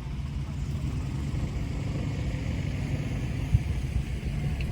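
Golf cart rolling along: a steady low rumble.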